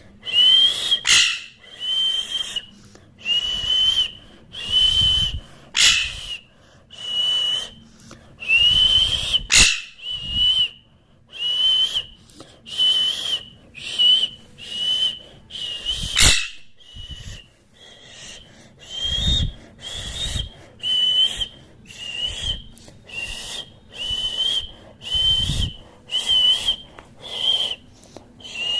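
Pet parrot whistling the same short, wavering note over and over, about once a second.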